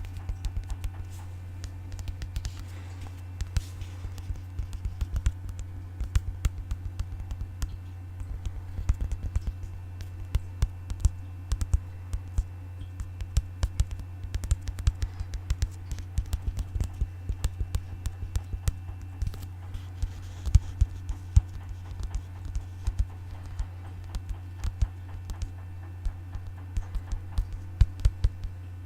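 ASMR tapping: many quick, irregular taps and clicks on objects, some louder than others, over a steady low hum.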